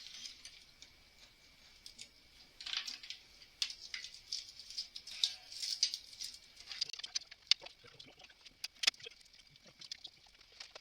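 Small metal parts and tools being handled and set down, giving scattered light clicks and short rattles with a few sharper clinks.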